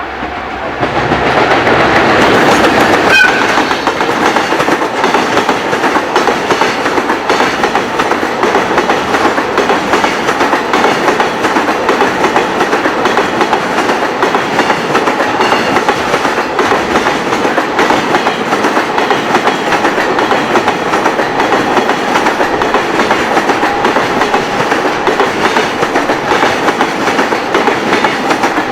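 A long freight train passing close by, its wheels clattering steadily over the rail joints for nearly half a minute, loud from about a second in. A very short high tone sounds about three seconds in.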